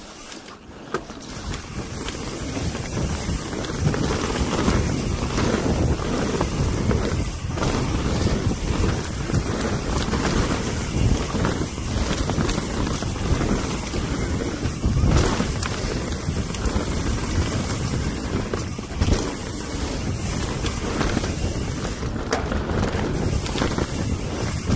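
Mountain bike descending a rooty dirt trail at speed: wind buffeting the helmet- or bar-mounted camera microphone over the rumble of knobby tyres on dirt. Scattered knocks and rattles come from the bike hitting roots and bumps.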